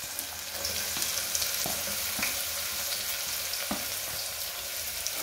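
Chopped onions sizzling in hot oil in a pressure cooker as they are dropped in by hand: a steady hiss with a few small pops.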